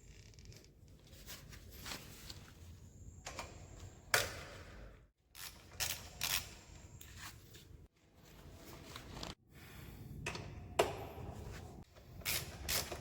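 Hand tools clinking, knocking and scraping against motorcycle metal parts during chain and sprocket work, in irregular bursts with a few sharper metallic knocks.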